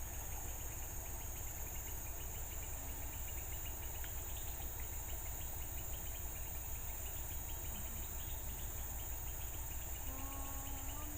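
Insects, crickets or cicadas, calling steadily: a constant high whine with a fast run of chirping ticks, over a low, rapid pulsing hum. A short pitched call comes in about ten seconds in.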